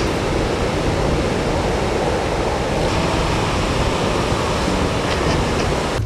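Ocean surf washing in at the shoreline: a steady rush of breaking waves and whitewater.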